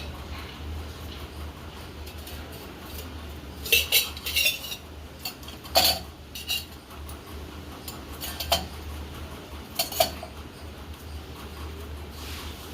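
Dishes and cutlery clinking as they are handled: a quick cluster of clinks about four seconds in, then single clinks every second or two, over a steady low hum.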